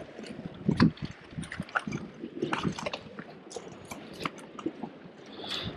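Sea water sloshing and gurgling among shore rocks, with scattered small clicks and knocks.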